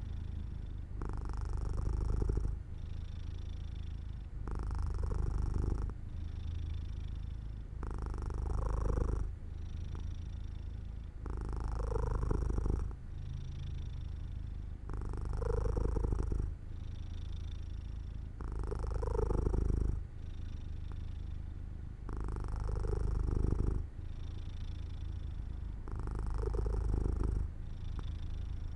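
Domestic cat purring steadily, the purr swelling and easing with each breath about every three and a half seconds.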